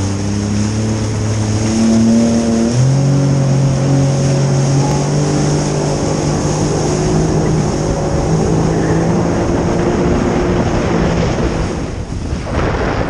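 Sea-Doo personal watercraft engine running under way, its pitch stepping up about three seconds in as it speeds up, over the rush of water and wind. Near the end the engine note fades and splashing spray and wind on the microphone take over.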